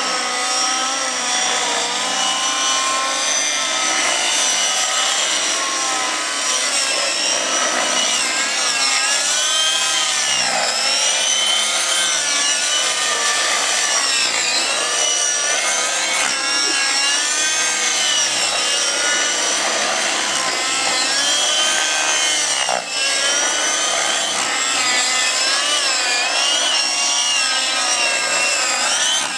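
Radio-controlled model helicopters flying aerobatics: a high, buzzing whine from their engines and rotors that keeps rising and falling in pitch as they swoop and turn.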